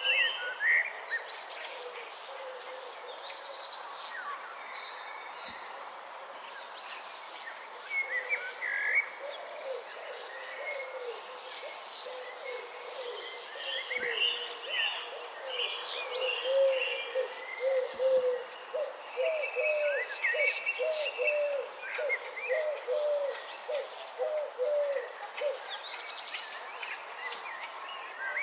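Crickets or other insects shrilling in a steady high-pitched chorus, with assorted birds chirping and calling over it. Through the second half, an animal gives a run of short, low calls, about two a second.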